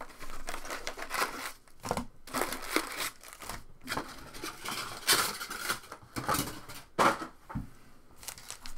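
Wrapped trading-card packs and their cardboard box rustling and crinkling as the packs are handled, lifted out of the box and stacked on the table, with a couple of soft knocks.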